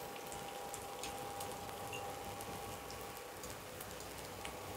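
Onions, garlic and curry leaves frying in a little oil in a pan, with soy sauce just added: a soft, steady sizzle with scattered fine crackles.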